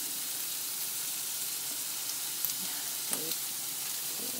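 Marinated chicken sizzling on a hot electric grill plate as marinade is brushed over it: a steady hiss with scattered small crackles.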